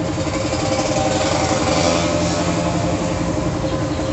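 A small engine idling steadily close by, with an even pulsing beat that swells a little in the middle.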